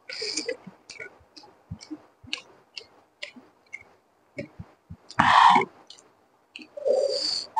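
Close-miked eating sounds of fried rice and eggs eaten by hand: irregular wet mouth clicks and chewing, broken by three louder half-second rustling bursts, the last near the end.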